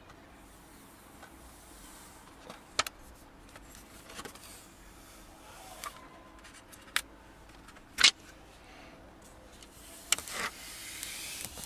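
Clear plastic protective liner being peeled and handled off a tempered glass screen protector: scattered sharp ticks and crackles of the film, the loudest about eight seconds in, with a rustle near the end.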